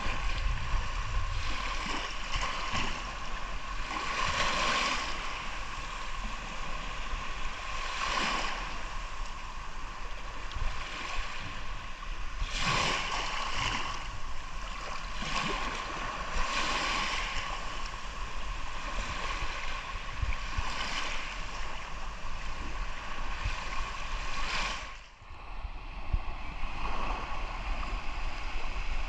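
Sea surf: waves breaking and washing in, with a swell of hiss every few seconds over a low rumble.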